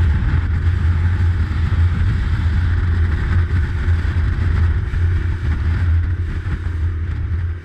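Boat's outboard motor running at speed, a steady low hum under the rush of water along the hull and wake.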